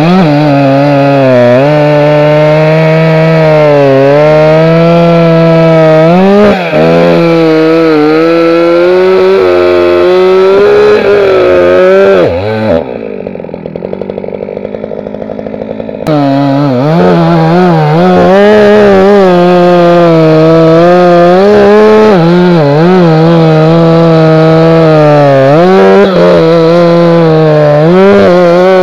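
Holzfforma G366 two-stroke chainsaw, a copy of the Stihl MS361 with its revs raised to match the original Stihl's, cutting through a log at full throttle. Its pitch dips and recovers as the chain loads in the wood. About halfway through it drops to idle for a few seconds with the bar out of the cut, then revs back up and cuts again.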